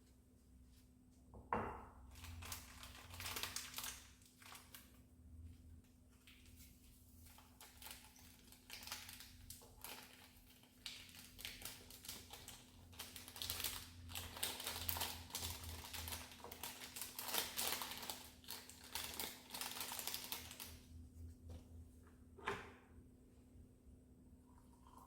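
Faint, irregular tapping of keys on a computer keyboard, in quick runs with short pauses, stopping a few seconds before the end, over a steady low hum.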